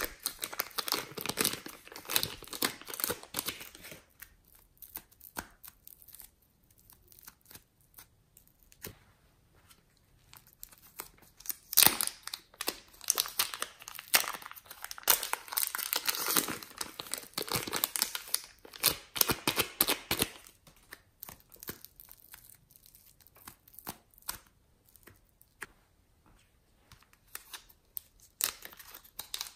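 Thin plastic bags crinkling and tearing as hands peel them open and squeeze soft clay out of them. The crackling comes in spells of several seconds, with quieter handling between them.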